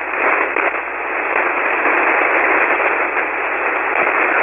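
Shortwave receiver static on 40-metre single sideband: a steady rushing hiss, trimmed to a narrow voice band, heavy enough to drown the other station's weak signal.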